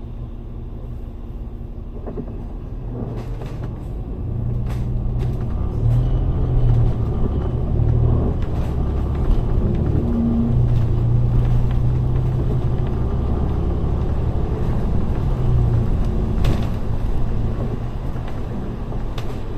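A double-decker bus's engine and running gear heard from inside the bus: a low drone that grows louder as the bus pulls away from standstill a few seconds in, then runs steadily while it drives, with a few sharp knocks and rattles.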